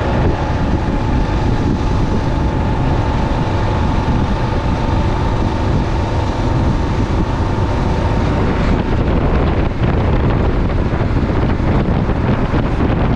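Kawasaki KLR 650's single-cylinder engine running steadily at riding speed, mixed with heavy wind noise on the microphone.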